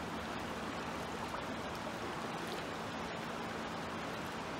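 Shallow river water running over rocks, a steady rushing, with a faint low hum underneath.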